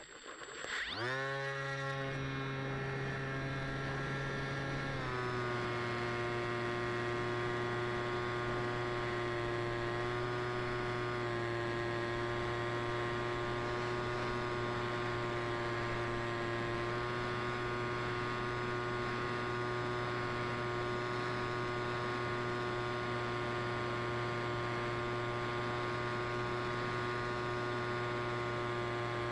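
Electric motor and propeller of a Versa Wing RC flying wing, heard from its onboard camera. It spins up with a fast rising whine about a second in, shifts pitch about five seconds in, then holds a steady whine in flight.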